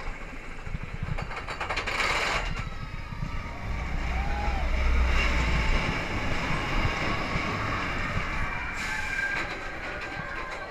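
Steel roller coaster train running on its track, wheels rumbling and clattering, the rumble swelling to its loudest about halfway, with short rushes of noise about two seconds in and near the end.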